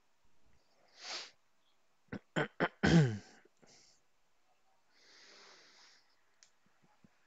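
A person sneezing: a sharp breath in, a few quick catches, then one loud burst about three seconds in that falls in pitch, with a softer breath out a couple of seconds later.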